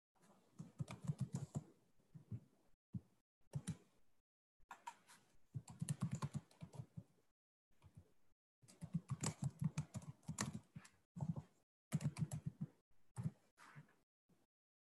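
Typing on a computer keyboard: quick runs of keystrokes in about five bursts with short pauses between.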